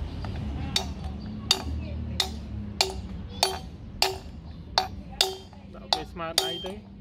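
Hammer striking a steel drift rod set through a motorcycle front wheel hub to drive out the wheel bearing: about ten sharp metallic knocks with a short ring, roughly one and a half a second.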